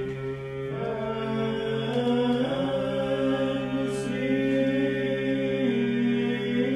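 Men's voices chanting an Orthodox matins hymn in Byzantine style: one low note is held steady as a drone while the melody line moves and glides above it.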